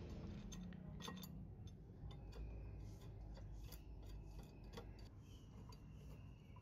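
A few light metallic clicks and taps as a bolt is fitted through the handle linkage of a hand-press juicer and a nut is gripped with pliers, over a faint low hum.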